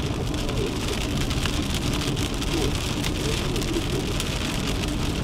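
Rain hitting a car's roof and windshield over a steady low rumble, heard from inside the car.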